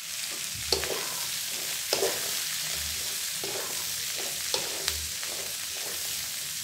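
Shallots and sliced chillies sizzling steadily in hot oil in a nonstick wok, being stir-fried with a wooden spatula that scrapes and knocks against the pan a few times.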